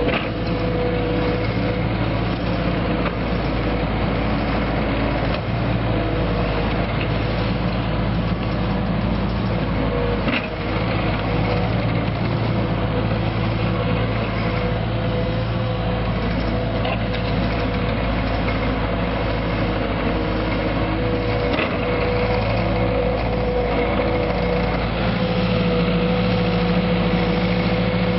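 Takeuchi TL8 compact track loader's diesel engine running steadily under load, with a higher whine over the engine note, while it pushes and grades dirt. It grows a little louder near the end as the machine comes closer.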